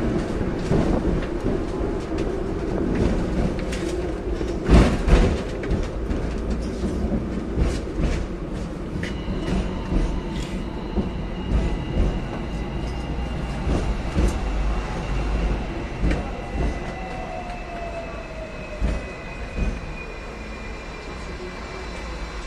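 Hong Kong double-decker electric tram running on its rails: a steady rumble with the wheels clicking and clattering on the track, loudest in a rattle about five seconds in. From about nine seconds a high whine sets in and slowly falls in pitch, with a lower whine falling alongside it.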